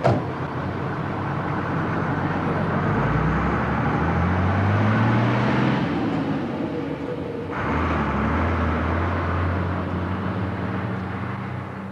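Milk delivery box truck's engine pulling away, rising in pitch for a few seconds, breaking off briefly about six seconds in, then picking up again and running on steadily, over street traffic noise.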